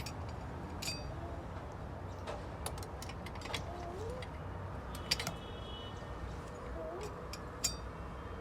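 Light metallic clinks and taps of transmission clutch-pack parts being handled and fitted, several scattered through, one ringing briefly about five seconds in. A steady low hum runs underneath.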